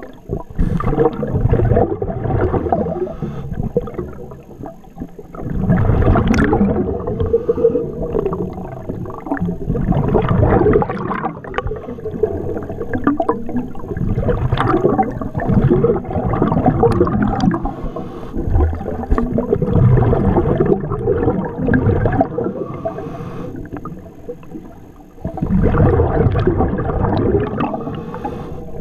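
Scuba diver breathing through a regulator underwater: exhaled bubbles gurgle in a loud burst every four to five seconds, with a steady watery rush between.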